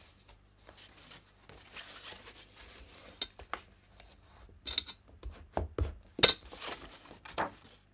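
Paper being folded and pressed flat by hand on a craft mat: soft rustling with several sharp taps, the loudest about six seconds in.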